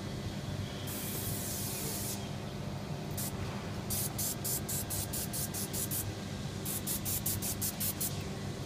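Dry ice blasting gun firing compressed-air blasts at a corrugated metal roof: one long hissing blast about a second in, then rapid short pulses of about four to five a second in two runs, over a steady low hum.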